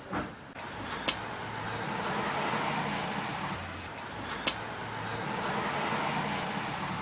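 Car traffic going by: engine and tyre noise swells and fades twice, with a few sharp clicks between.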